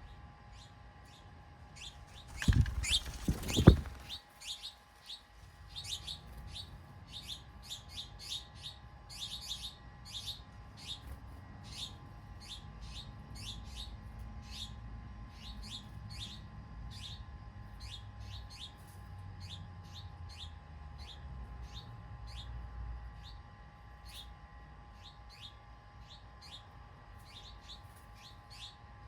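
A bird chirping over and over, short high chirps about two a second, over a faint low rumble. A loud, brief burst of noise comes about three seconds in.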